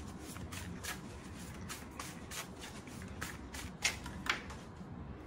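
A deck of message cards being shuffled by hand: a run of short, crisp card snaps, several a second, loudest around four seconds in.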